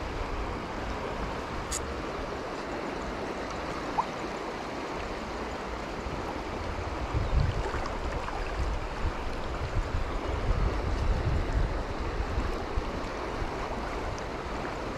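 Steady rush of river water, with gusts of wind buffeting the microphone for several seconds around the middle. A single faint click about four seconds in.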